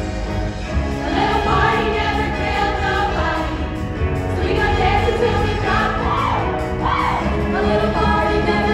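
Music with a large women's chorus singing over it, loud and continuous, as heard in a theatre.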